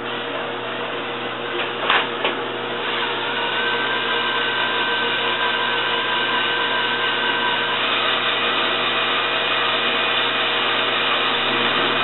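Electric drill running steadily as a twist bit bores into the end of a rusted car door-hinge pin clamped in a bench vise, drilling out the pin's secured end. A couple of sharp knocks come about two seconds in, then a steady whine.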